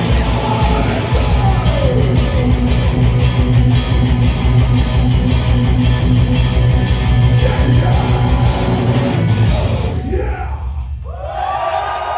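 Black metal band playing live: loud distorted electric guitars, bass and drums. The song stops about ten seconds in, and a moment later cheering and voices from the crowd start up.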